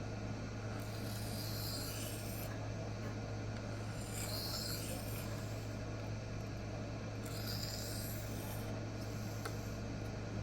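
Böhler K110 steel knife blade drawn across a Rikon 400/800-grit CBN sharpening plate: three long gritty scraping strokes, each about a second and a half.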